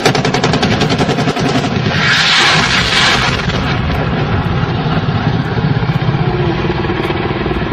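Military helicopter engine and rotor drone running steadily, with fast even pulsing in the first couple of seconds and a loud rushing burst of noise about two seconds in, as weapons fire and impacts hit the ground below.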